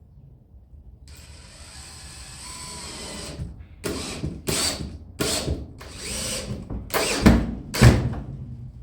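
Power drill running steadily for about two seconds, then five short bursts on the trigger, the last two the loudest, as it drills and drives screws.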